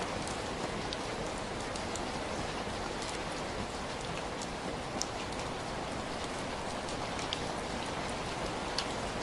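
Steady heavy rain falling, a dense even hiss with scattered louder individual drops ticking on a surface.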